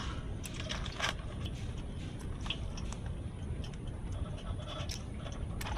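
Boiled soya chunks being squeezed by hand to press out the water, with soft wet squelching and a few scattered light taps as squeezed chunks are dropped onto a perforated steel plate, over a low steady rumble.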